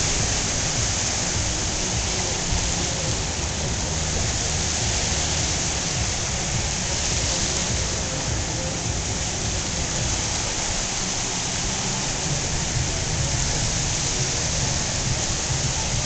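Small sea waves washing and breaking at the shoreline: a steady rushing hiss with a low rumble underneath.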